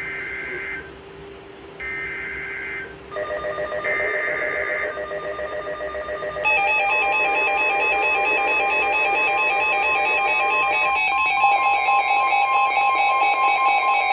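NOAA Weather Radio Emergency Alert System (EAS) signal: three short screeching bursts of digital SAME header data, each about a second long and about a second apart, announcing a severe thunderstorm warning. Partway through the third burst, a weather alert receiver's alarm starts beeping. About six and a half seconds in it gives way to a louder, steady multi-tone alert sound that includes a tone near 1 kHz.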